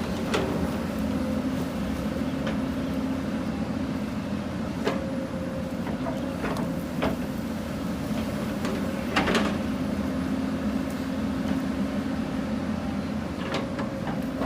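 Hyundai 220 excavator's diesel engine running steadily, with scattered sharp clanks and knocks from the machine at work; the loudest knock comes about nine seconds in.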